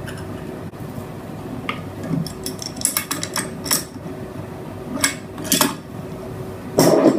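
Small steel nuts and washers clinking as they are unscrewed from the engine-mount bracket bolts and set down on a table, in scattered sharp clicks, with a louder clatter near the end.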